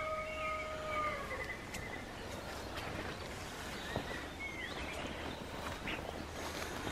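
Birdsong in spring woodland: scattered short chirps and calls over a steady faint background hiss. A long, even-pitched call fades out in the first second and a half, and there are a couple of faint clicks.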